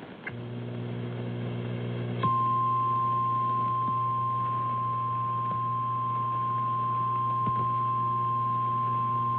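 A low electrical buzz comes in just after the start. About two seconds in, the single steady 1050 Hz NOAA Weather Radio warning alarm tone begins and holds, signalling that a new weather warning follows.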